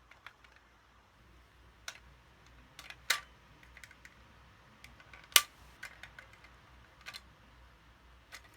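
Scattered sharp clicks and taps of small parts being handled and pulled out of an airsoft Glock pistol's slide, with a small cluster about three seconds in and the loudest single click about five seconds in.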